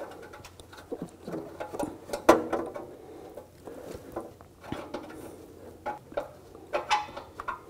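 Light metal clicking and scraping as an O2 sensor socket turns a loosened upstream oxygen sensor out of the exhaust by hand, with a louder click about two seconds in and again near the end.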